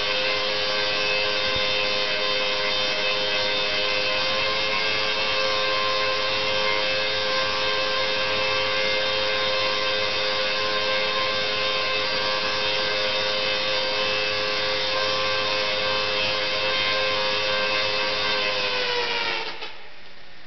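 Rotary-spark-gap Tesla coil firing, its arcs striking a CD with a loud steady buzz. Near the end the pitch sags and the buzz cuts out as the coil shuts down.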